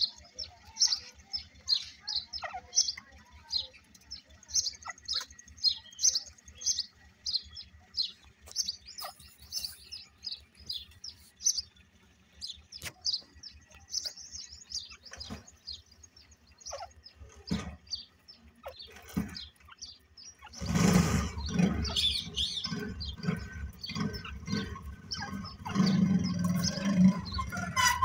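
Birds chirping: quick, high, short chirps, several a second, going on without a break. About two-thirds of the way in, a louder rough rustling and knocking noise starts and continues under the chirps.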